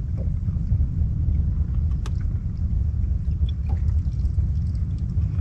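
Steady low rumble, with a faint click about two seconds in.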